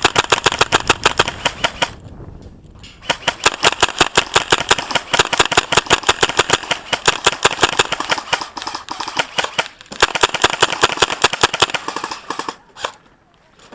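Airsoft gun firing on full auto: three long bursts of rapid, sharp clicks with short pauses between, then a few single shots near the end.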